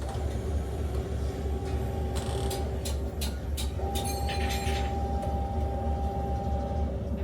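Steady low hum of a railway carriage, with a quick series of sharp metallic clicks and knocks around the middle and a thin steady whine from about four seconds in until near the end.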